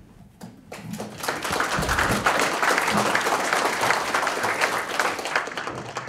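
Audience applause. It starts within the first second, builds quickly to dense, steady clapping and holds there.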